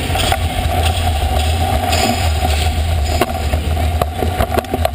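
Kick scooter wheels rolling fast over a smooth skatepark floor: a loud, steady rumble with sharp clicks now and then, more of them in the second half.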